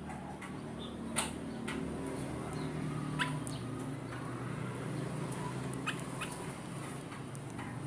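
Kutilang emas bulbul giving short, sharp call notes, about six in a few seconds, over a steady low hum.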